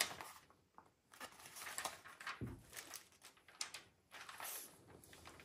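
Faint rustling and crinkling of a diamond painting canvas and its plastic cover sheet being handled and smoothed flat on a table, with a soft thump a little over two seconds in.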